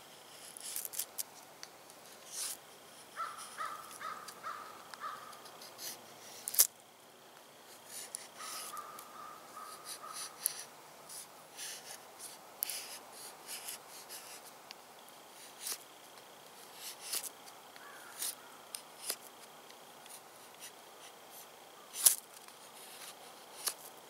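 Small folding knife blade of a budget multi-tool shaving curls off a dry wooden stick to make a feather stick: a series of short, sharp scraping strokes, a few at a time, with two louder ones. A bird calls in two short runs of repeated notes, a few seconds in and again around ten seconds.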